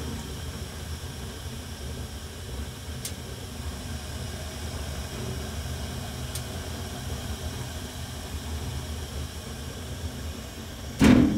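Atmospheric natural-gas burners of an old, low-efficiency furnace burning with a steady low rumble, with a few faint ticks. A loud thump comes near the end.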